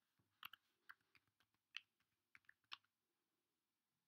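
Faint typing on a computer keyboard: about ten quick keystrokes over roughly two and a half seconds as a short terminal command is typed, then the typing stops.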